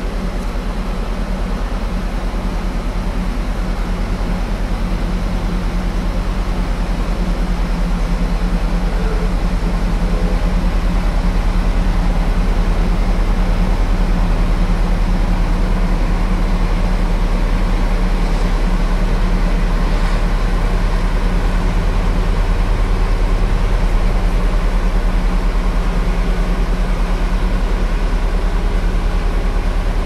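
Steady low drone of a large engine running at an even, unchanging speed.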